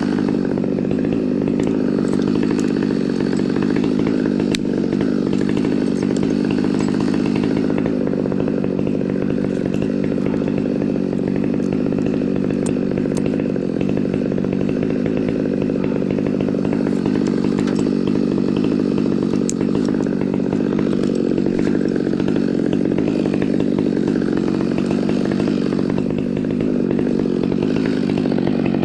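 A small engine running steadily at one constant speed, with no revving or change in load.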